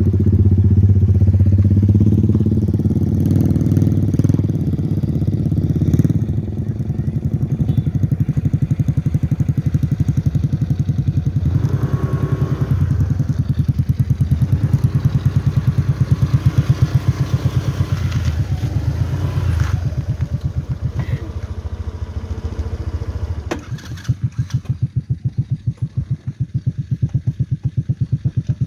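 Small 125 cc single-cylinder go-kart engine running with an even pulsing beat. It drops to a slower idle for the last few seconds.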